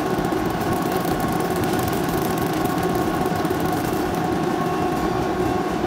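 Two-roll rubber mill running: a steady mechanical drone with a few faint steady whining tones.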